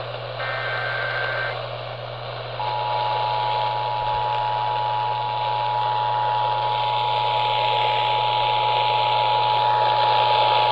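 Emergency Alert System tones heard over AM radio with static hiss and hum. The last short buzzing SAME data burst ends about a second and a half in, then about two and a half seconds in the two-tone EAS attention signal starts and holds steady for about eight seconds. It announces a severe thunderstorm warning activation.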